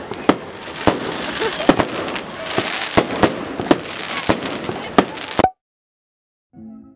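Fireworks going off: about a dozen sharp bangs and crackles over a steady hiss of heavy rain, cutting off suddenly about five and a half seconds in.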